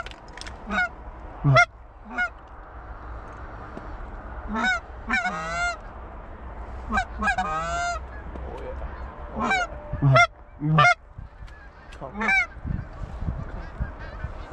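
Canada goose honks and clucks: loud single calls every second or so, with two quick runs of clucking calls, over a steady low wind rumble.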